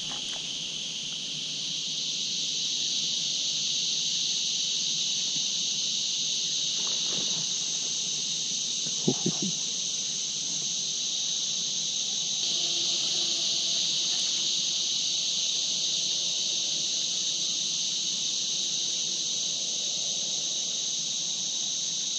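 A steady, high-pitched insect chorus, with a few brief clicks about seven and nine seconds in.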